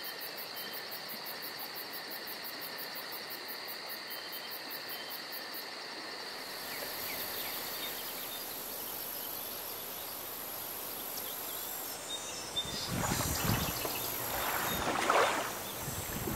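Night ambience of insects chirping in a fast, steady pulse over a faint hiss. About two-thirds of the way through it gives way to irregular gusts of wind buffeting the microphone.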